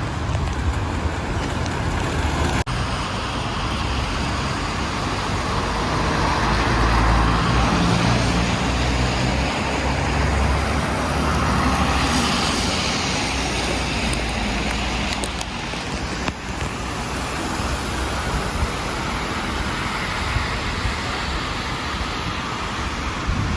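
City street traffic noise: steady road noise with a low rumble, swelling louder as a vehicle passes about midway through.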